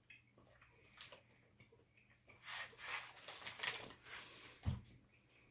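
Clear plastic cookie wrapper crinkling and rustling in the hands for about two seconds, starting a little before halfway. It is followed by a soft thump.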